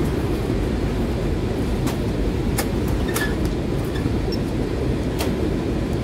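Steady low rumble of packing-warehouse machinery, with a few light clicks and knocks as mailers and cardboard are handled on the packing bench.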